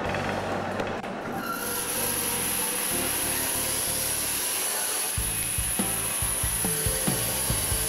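A wood lathe turning a wooden block gives way about a second and a half in to a bandsaw running and cutting through the block. The bandsaw has a steady high whine, and uneven knocking joins it from about five seconds in.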